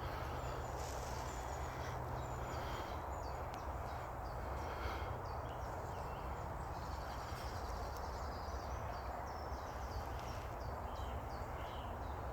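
Wild birds calling and singing: many short chirps with a fast trill about seven seconds in, over a steady low rushing background noise.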